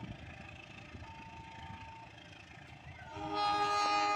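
Diesel locomotive's horn sounding a loud, held chord of several tones from an approaching train, starting about three seconds in over faint background noise.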